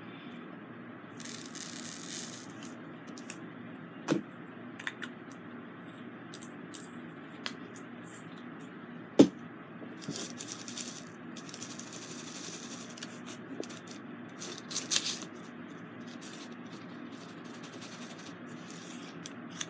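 Small resin diamond-painting drills rattling and sliding in a plastic sorting tray as it is handled, in three short spells, with a few sharp taps, the loudest about nine seconds in, over a faint steady hum.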